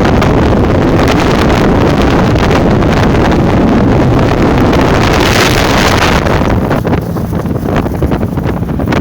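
Strong storm wind gusting hard and buffeting the microphone, a loud continuous roar that eases slightly about seven seconds in.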